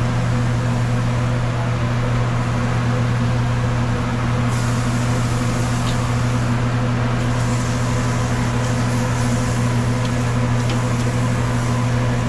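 A steady low mechanical hum that does not change, with a faint hiss joining about four and a half seconds in.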